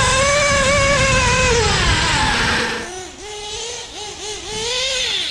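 Modified LRP .32X nitro engine of a 1/8 Kyosho Inferno ST truggy running hard at high revs, heard close with a low rumble. About three seconds in it turns abruptly quieter and more distant, the revs dipping and rising again and again as the throttle is worked.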